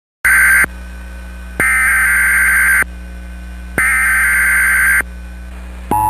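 Emergency Alert System SAME header: three bursts of harsh, screechy digital data tones, the first short and the next two about a second long, with a low hum in the gaps. It is the encoded header that opens an Amber Alert on NOAA Weather Radio.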